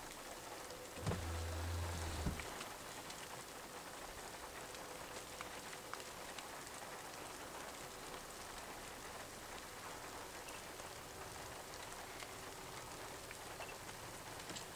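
Steady rain pattering, with small drop ticks all through, over a faint steady hum of distant heavy machinery. About a second in, a low rumble lasts just over a second, with a knock at its start and end.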